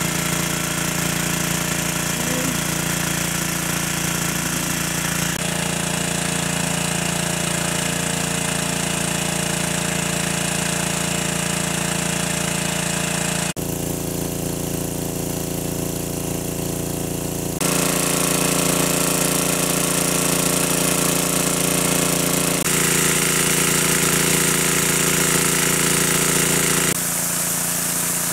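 Motorised water pump running steadily with a dense mechanical hum. It jumps abruptly in level and tone a few times.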